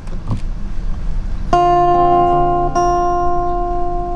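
Acoustic guitar chords: a chord strummed about a second and a half in and left ringing, then a second chord struck a little over a second later that rings on and fades near the end.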